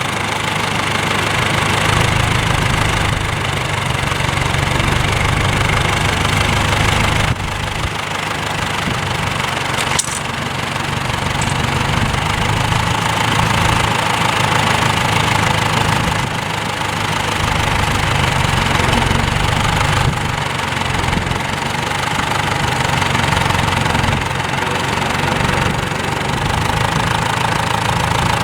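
Vintage tractor engine running steadily with a low, even hum, a higher steady whine joining in about halfway through.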